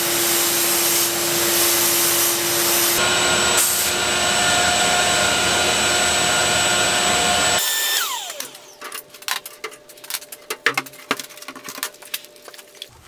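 Sandblast cabinet in use: a loud, steady hiss from the blast gun with the cabinet's vacuum motor running. The hiss cuts off about seven and a half seconds in, a motor then spins down with a falling whine, and scattered light clicks and knocks follow.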